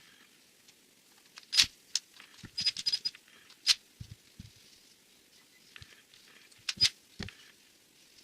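Sharp clicks and light metallic taps of small parts and tools being handled as a cordless angle grinder's gear head, turned 90 degrees, is fitted back on. There are a few separate loud clicks and a quick run of taps near the middle.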